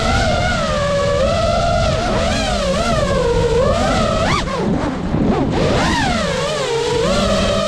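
Motors of a 5-inch FPV freestyle quadcopter whining, the pitch constantly rising and falling with throttle, with a quick dip and sharp swoops at about four and a half seconds in as the throttle is chopped and punched again.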